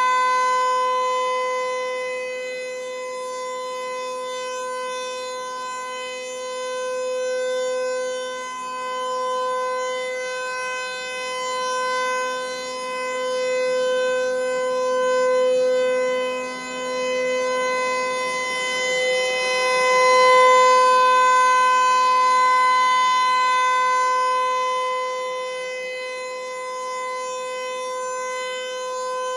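Federal Signal 508-128 rotating outdoor warning siren sounding a steady Full Alert tone, its pitch held constant. The loudness swells and fades every few seconds as the rotating head sweeps past.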